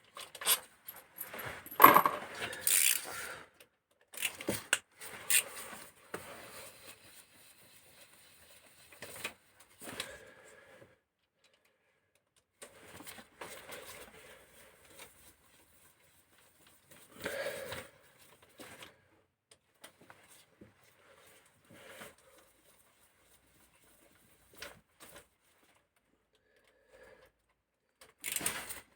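Metal hand tools and small engine parts clinking, scraping and clattering on and off as the camshaft end of a 16-valve engine head is taken apart.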